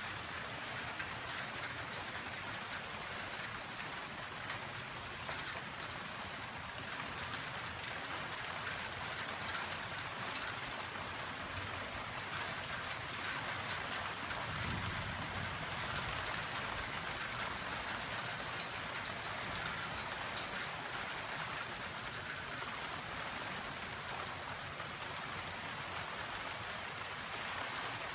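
Steady rain falling on flagstone paving and garden plants, the start of a desert monsoon thunderstorm. A brief low rumble comes about halfway through.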